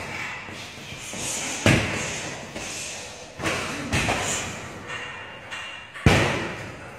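Heavy punching bag being struck: three hard thuds about two seconds apart with lighter hits between, each echoing in a large hall. The hardest hit comes near the end.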